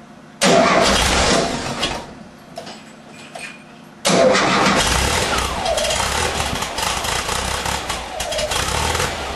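1978 VW Type 2's air-cooled flat-four started from cold. A first start about half a second in dies away within a couple of seconds. A second start about four seconds in keeps running, unevenly with the pitch sagging now and then: the rough cold idle of an engine that won't idle until it warms up.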